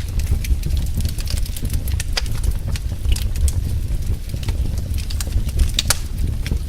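Fireplace fire crackling: irregular sharp pops and snaps over a steady low rumble of the burning flames.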